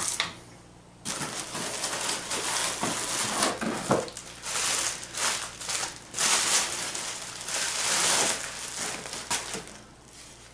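Plastic bubble-wrap bag crinkling and rustling as it is handled and pulled off a radio transmitter. The crinkling starts about a second in and dies away near the end.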